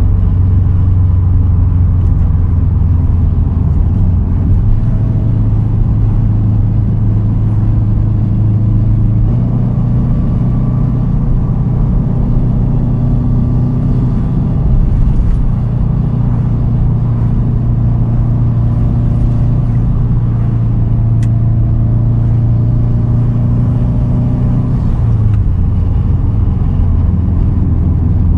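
2010 Subaru WRX STI's turbocharged 2.5-litre flat-four running through a Tomei titanium single straight-pipe exhaust while cruising. It is a steady low engine drone that shifts in pitch a few times with throttle changes.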